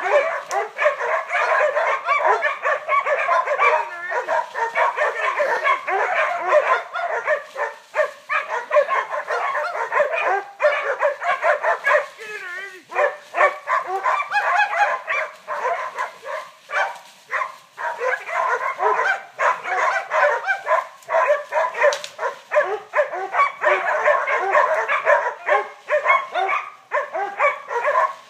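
Catahoula cow dogs barking and yipping in rapid, unbroken barks, the sound of dogs baying a bull.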